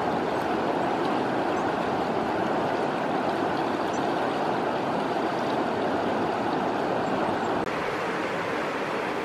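A river flowing: a steady, even rush of water that drops slightly in level near the end.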